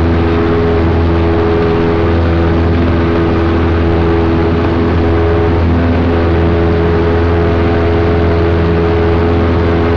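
Cessna 172's piston engine and propeller running at a steady pitch, heard inside the cockpit as a loud, even drone with a deep hum under it.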